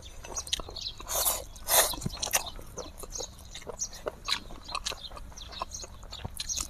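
People eating spicy instant noodles close to the microphone: a couple of slurps about a second in, then chewing with many small wet mouth clicks.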